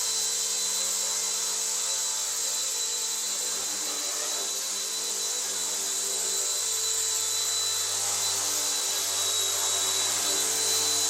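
Micro RC helicopter (RC ERA C138 Bell 206, 1/33 scale, flybarless) flying: its small electric motors and rotor blades make a steady high-pitched whine over a whirring hiss.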